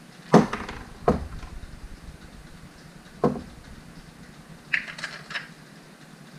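Knocks and clunks of metal shock-absorber parts being handled on a wooden workbench. A cast aluminium shock mount is picked up and slid over the shock's chrome rod. There are about five irregular knocks, the loudest about half a second in.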